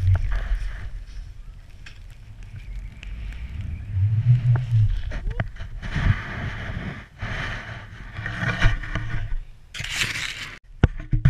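A board sliding and turning through deep powder snow, with wind rushing over the camera microphone in waves. A loud brushing rush comes about ten seconds in, as snow and a glove come right up against the camera.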